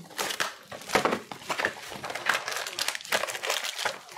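Foil trading-card pack wrappers crinkling and rustling as they are handled, in a run of quick irregular crackles along with the handling of a card box.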